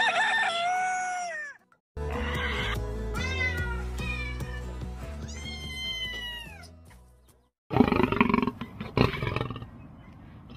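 A rooster crowing once, then a cat meowing several times, then a lion roaring loudly near the end, over background music.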